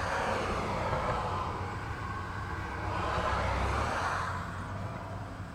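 A passing vehicle: a rushing noise over a low rumble that swells, eases, swells again about three seconds in, then fades.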